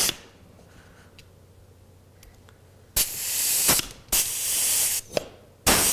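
Pneumatic rivet squeezer cycling on a nutplate rivet. After a few faint ticks come two hisses of compressed air about three seconds in, a sharp click, and a short last hiss near the end.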